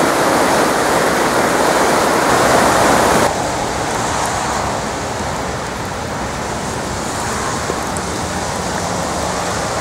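Swollen floodwater creek rushing loudly. About three seconds in it cuts off suddenly to a quieter, steady hiss of rain falling on flooded grass and standing water.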